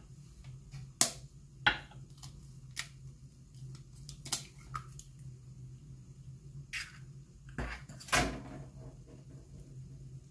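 A raw egg rapped twice against the rim of a glass baking dish: two sharp cracks about a second in. Lighter clicks of shell follow, then the rustle of hands working the egg into crumbly flour and butter, over a low steady hum.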